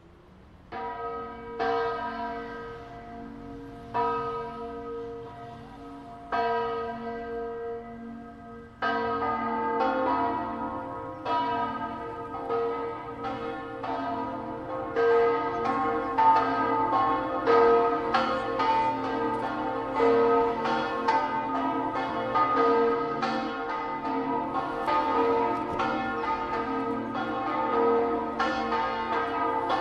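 Church bells in a bell tower ringing: at first a single bell strikes slowly, a couple of seconds apart, then about nine seconds in more bells join in a continuous peal of overlapping strokes.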